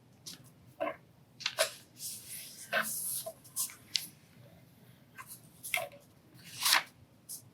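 A square sheet of origami paper being folded and creased by hand: a run of short, crisp rustles and scrapes, with a longer rubbing swipe about two to three seconds in.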